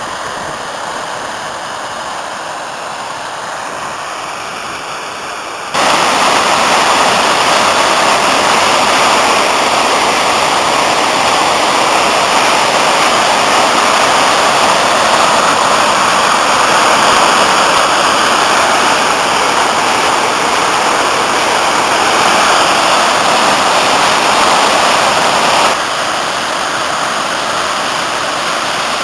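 Waterfall on a mountain stream in spate after heavy rain: a steady rush of falling water. It gets suddenly louder about six seconds in and drops back a little a few seconds before the end.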